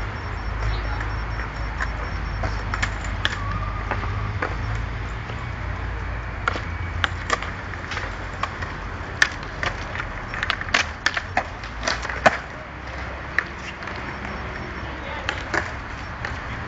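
Skateboards on concrete: wheels rolling and decks clacking and knocking, with a cluster of sharp knocks about nine to twelve seconds in, over a steady low rumble.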